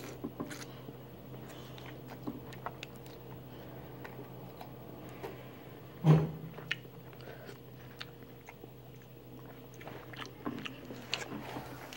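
Close-up eating sounds: noodles being chewed and eaten from a bowl with a fork, with scattered small clicks. A louder, sudden knock comes about six seconds in.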